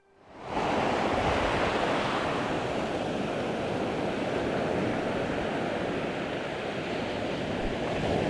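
Ocean surf washing in steadily, mixed with wind on the microphone; it fades in from silence in the first second.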